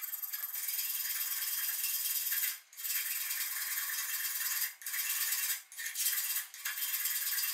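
Hand file scraping across steel in long strokes, with brief pauses between strokes about three times in the second half.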